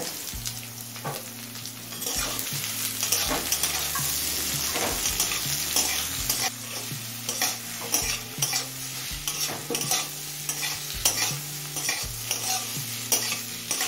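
Freshly added sliced onion sizzling in hot mustard oil in a metal kadai, with a metal spatula scraping and clinking against the pan again and again as it is stirred.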